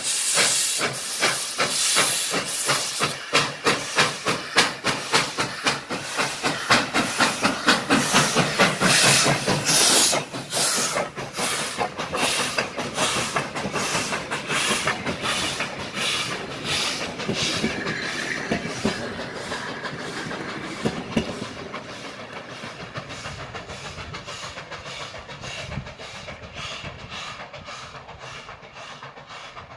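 Steam locomotive passing close by under power: its exhaust chuffs in a rapid, even beat over a heavy hiss of steam. The sound is loudest in the first third, then fades steadily as the train with its passenger carriages draws away.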